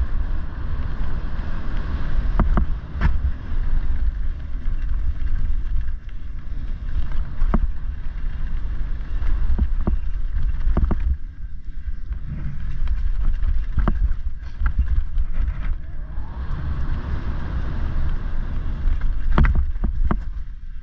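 Mountain bike descending a dirt trail covered in dry leaves: heavy wind buffeting on the microphone and tyres rolling over leaves and dirt, with scattered sharp clicks and knocks as the bike rattles over bumps.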